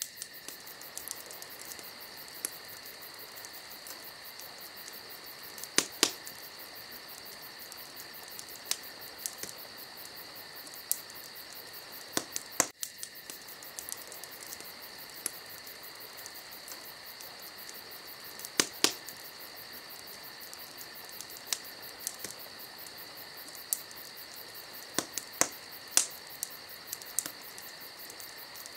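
Wood fire crackling in a fireplace, with irregular sharp snaps and a few louder pops, over a steady high-pitched ringing tone.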